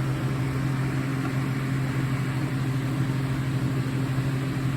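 A steady low hum over a constant even hiss, like a room fan or air-conditioning unit running.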